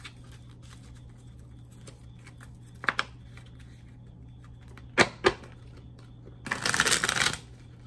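Tarot cards being handled and shuffled: a couple of sharp taps about three seconds in, two more about five seconds in, then a quick flurry of card clicks lasting about a second near the end.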